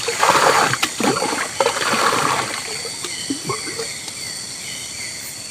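Water splashing and sloshing in two surges in the first half, then smaller irregular splashes, over a steady high drone of forest insects.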